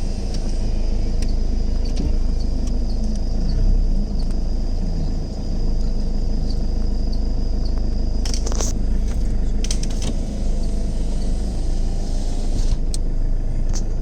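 Vehicle engine running steadily at a low hum, with a thin steady high-pitched tone above it and a few sharp clicks about eight seconds in and again near the end.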